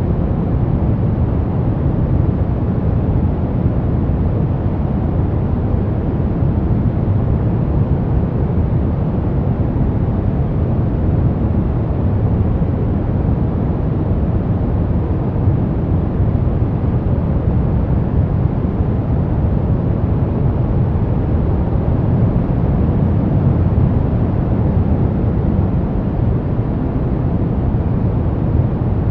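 Brown noise: a steady, deep rushing hiss, heaviest in the bass and falling away in the treble, with no changes.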